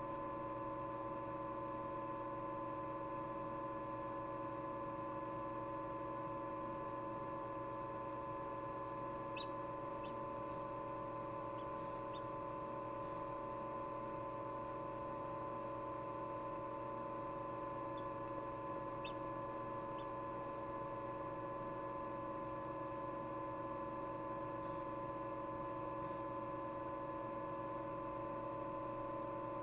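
Steady hum of an egg incubator's motor, with a handful of faint, short high peeps from a chick inside its pipped egg, in two groups around ten and twenty seconds in.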